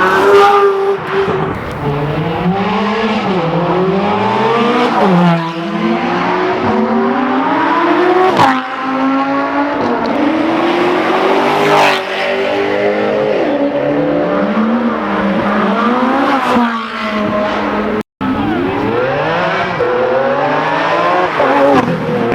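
Supercar engines accelerating hard, the note climbing in pitch and dropping back at each gear change, over and over, with sharp cracks at a couple of the shifts. The sound drops out briefly about four seconds before the end.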